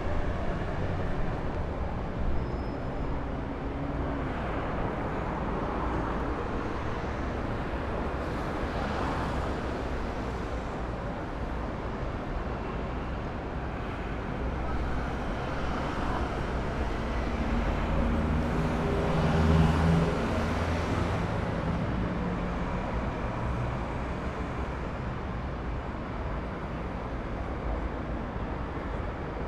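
City road traffic: cars, vans and taxis passing one after another in a steady hum of engines and tyres, swelling as each vehicle goes by. The loudest pass comes about two-thirds of the way through.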